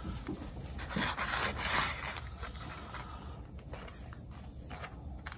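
Long knife sawing through smoked brisket with a rasping scrape, loudest a second or so in and quieter after.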